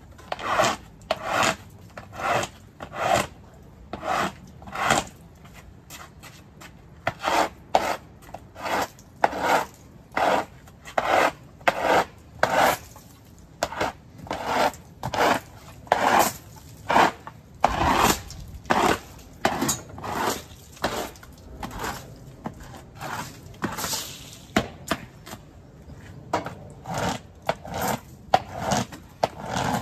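Push broom sweeping leaves across a concrete garage floor in brisk, repeated scraping strokes, about one to two a second, with a short pause about six seconds in.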